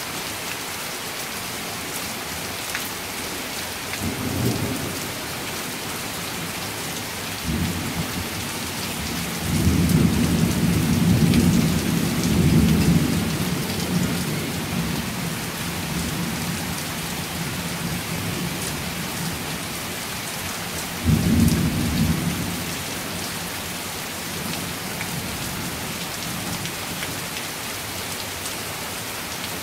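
Heavy rain pouring steadily, with several rolls of thunder: a short low rumble about four seconds in and another soon after, then a long, loud rumble from about ten seconds in that fades out over several seconds, and a short clap a little past twenty seconds.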